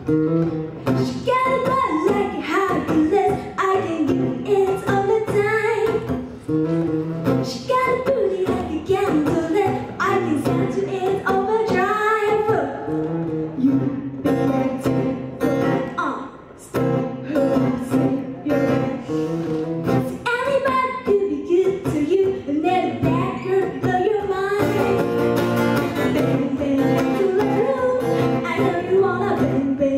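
A singer performing a song with guitar accompaniment.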